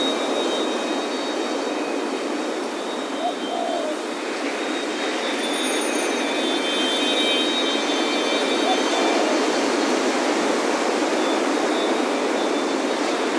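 Steady ocean surf, with wind chimes ringing high tones over it, densest around the middle.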